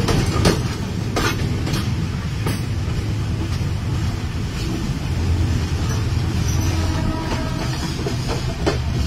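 Open railway wagon rolling along the track, heard from on board: a steady low rumble of wheels on rail. Sharp clacks over the rail joints come about every two-thirds of a second in the first few seconds and again near the end.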